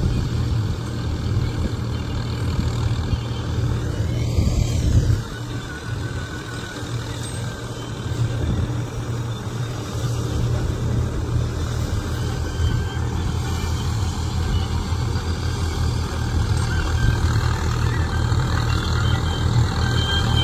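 Swaraj 855 tractor's diesel engine running steadily under load, driving a straw reaper that chops wheat straw and blows it into a trolley; a steady low drone with a brief dip in level about five seconds in.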